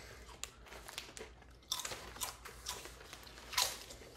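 Potato chips being bitten and chewed, a run of irregular crisp crunches with one louder crunch about three and a half seconds in.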